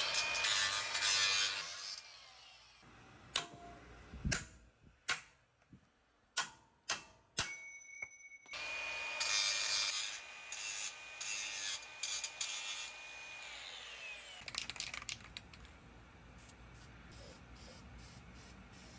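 A power cutting tool cutting into the truck's front-end parts in two loud stretches, the second with a steady high whine. Between the stretches come a run of sharp clicks and knocks, and a few fainter clicks follow near the end.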